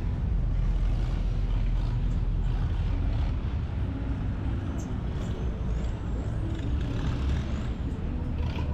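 Boat engine running steadily under way, a continuous low rumble with rushing noise over it.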